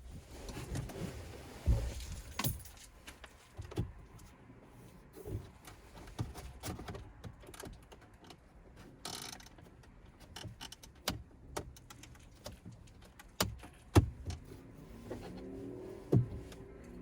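Scattered clicks, taps and rubs of a plastic interior trim panel being handled and worked loose in a pickup's cab, with a short scrape about nine seconds in.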